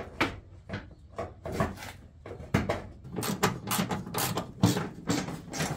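Irregular knocks, clicks and scrapes of a plastic rear bumper cover being pushed into place against a car body and fastened by hand from inside the rear quarter.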